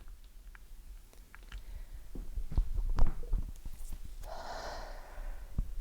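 Heart sounds picked up by a microphone held against the chest of a person with mitral valve prolapse. There are low thumps, the loudest about three seconds in, then a breath-like hiss a little after four seconds.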